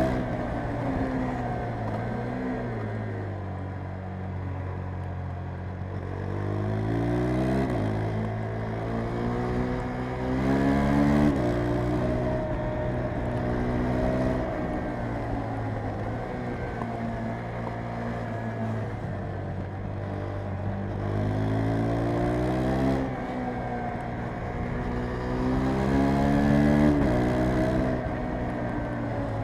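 KTM 390 Adventure's single-cylinder engine revving hard under acceleration. Its pitch climbs and then falls away abruptly about five times as the rider works the throttle and gears.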